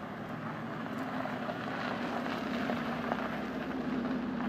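Aston Martin Vanquish Zagato's V12 running at low revs as the car rolls slowly by, a steady drone that grows a little louder about a second in. Tyres crunch over gravel underneath.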